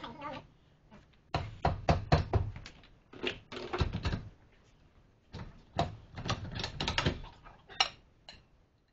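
Irregular metal knocks and clatter, in three bursts with short pauses, as a trailer's brake drum and hub are worked loose and pulled off the axle spindle by hand.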